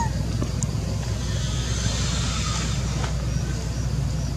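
Steady low background rumble, with a few faint short high chirps in the second half.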